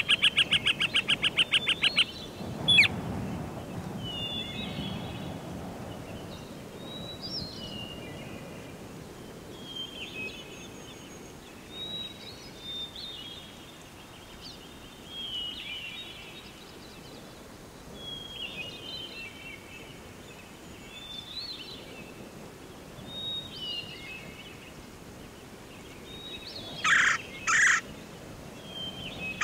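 Birds calling: a rapid pulsed call that stops about two seconds in, then short chirps every second or two over a steady background noise, and a few loud harsh calls near the end.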